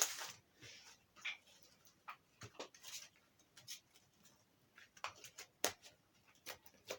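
Slime being worked by hand: scattered soft, sticky clicks and squelches.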